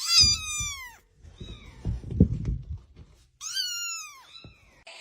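Domestic cat meowing twice, each a loud drawn-out meow of about a second that falls in pitch. Low rustling and knocking sounds come between the two calls.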